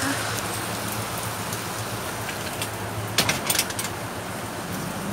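Steady rain falling, an even hiss, with a cluster of sharp clicks a little past the middle.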